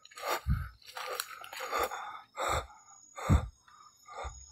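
Footsteps crunching on dry leaf litter, a few uneven steps with dull thuds, over a faint steady high drone of night insects.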